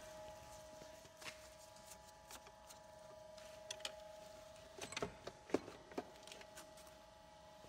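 Faint steady whine under scattered clicks and knocks of garage tools and parts being handled, with a small cluster of knocks about five to six seconds in.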